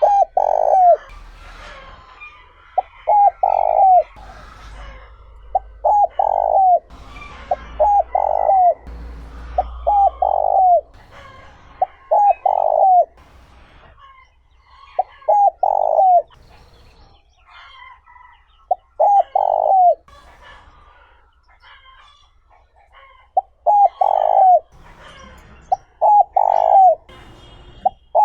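Spotted dove cooing over and over: each phrase is a short note or two followed by a longer falling coo, repeated every couple of seconds, with a longer pause in the middle. Faint higher chirps of other small birds sound in the background.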